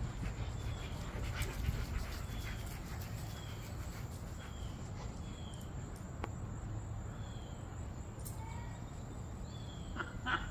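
Outdoor backyard sound while dogs play on grass: a steady low rumble with short, high, falling chirps scattered through and a few soft clicks, then a brief louder burst near the end.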